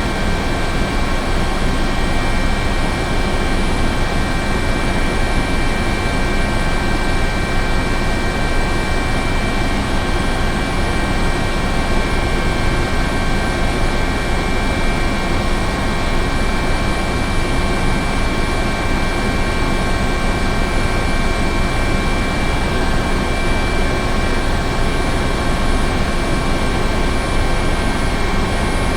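Helicopter running steadily: a constant dense rotor and engine noise with several unchanging high-pitched whine tones, no rise or fall in level.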